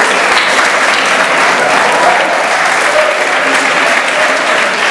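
An audience applauding steadily, with a few voices heard among the clapping.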